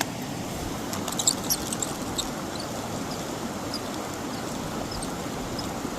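Mountain stream water rushing steadily, with a few light clicks about a second in and faint short high chirps scattered over it.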